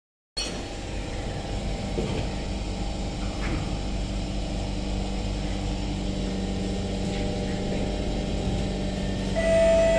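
Inside a stationary SMRT C151 train car: a steady electrical hum from the train's onboard equipment. Near the end a two-note descending chime starts, the door-closing warning before departure.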